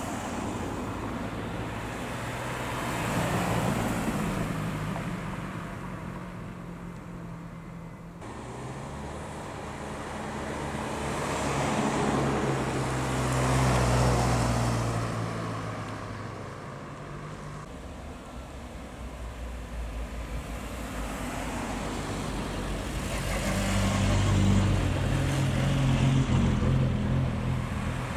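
Modern BMW-era MINI cars driving slowly past one after another, each engine and tyre sound swelling as the car nears and fading as it goes; three passes, about four, thirteen and twenty-five seconds in.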